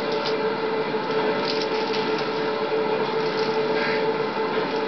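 Steady hum and hiss with a strong constant tone, the background noise of an old video recording, with a few faint clicks.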